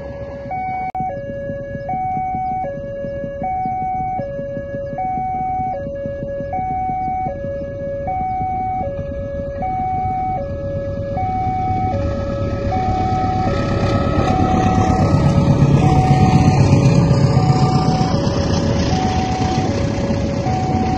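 Railway level-crossing warning alarm sounding two tones in turn, high then low, about one cycle every 1.3 seconds. Under it, a KAI diesel-locomotive-hauled passenger train approaches and passes. Its rumble grows and is loudest about two-thirds of the way in.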